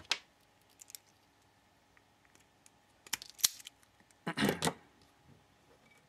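Self-adjusting wire stripper clicking as it grips a heavy stranded wire and pulls off a length of insulation. There are a few sharp clicks, a sharper double snap about three seconds in, then a short, louder clatter about a second later.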